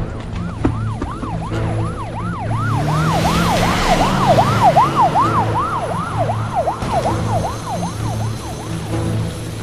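Police car siren in a fast yelp, each wail rising and falling about three times a second, over a steady low drone. A rushing noise swells and fades in the middle.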